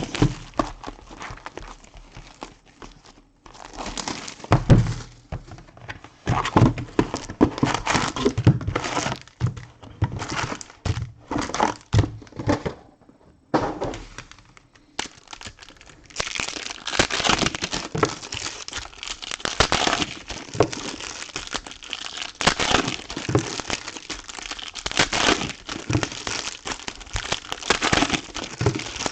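Wrappers of 2013-14 Panini basketball card packs crinkling and tearing as they are opened, with occasional thunks of handling. The crinkling comes in short, gappy spells at first and turns dense and continuous about halfway through.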